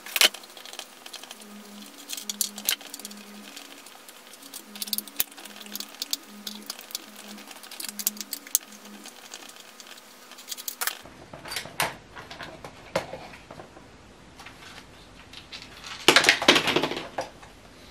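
Scattered clicks, ticks and light plastic clatter of a chainsaw's recoil starter cover being unscrewed and lifted off, with a louder rustle of handling near the end.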